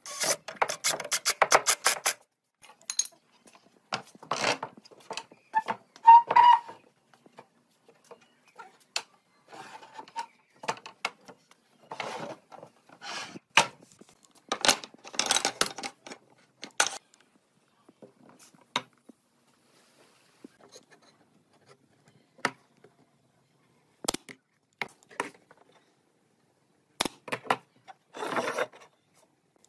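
Wood being worked and handled by hand: a quick run of clicks at the start, then scattered knocks and several short rubbing or scraping strokes.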